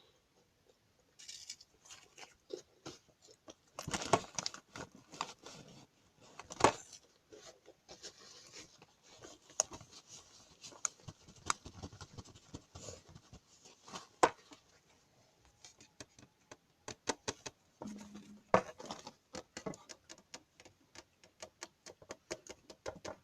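Irregular light clicks, taps and rustles, with a few louder knocks.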